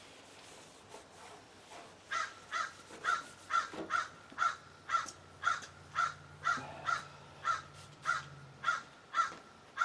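An animal calling over and over, short calls about two a second that start about two seconds in, with a faint low hum underneath for several seconds.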